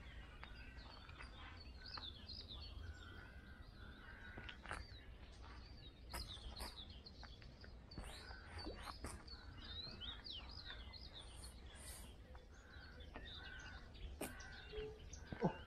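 Several songbirds singing and chirping all through, with short rising and falling chirps and a repeated steady whistled note. A few sharp clicks come now and then over a faint low rumble.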